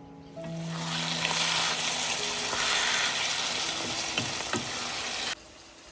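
Food sizzling loudly in a hot pan, with a couple of clicks of a utensil stirring about four seconds in; the sizzle cuts off suddenly near the end. Soft background music underneath.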